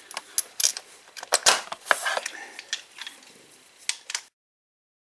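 Irregular metallic clicks and clinks of a 5/8 spark plug socket and wrench being fitted and worked on the go-kart engine's spark plug, then the sound cuts off suddenly about four seconds in.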